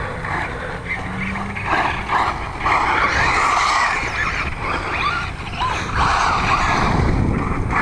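Electric 1/10-scale RC trucks driving on sand and dirt: motor whine and the scrabble of tyres throwing dirt come in surges, with wind rumbling on the microphone.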